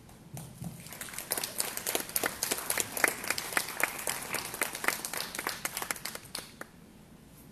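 Audience applauding for about six seconds, then stopping fairly suddenly.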